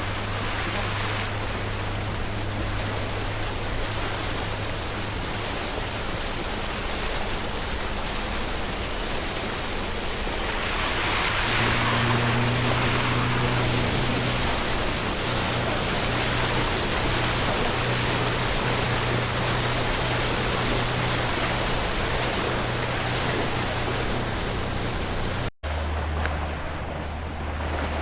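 A river boat's motor running steadily under the rush of wind and water. The engine note rises about eleven seconds in and drops to a lower note after a brief break near the end.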